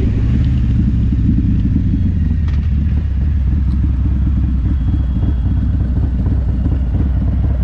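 Harley-Davidson Milwaukee-Eight V-twin with an S&S 475 cam, breathing through a Bassani mid-length 2-into-1 exhaust, running steadily at low revs as the bike slows and stops: a deep, low rumble.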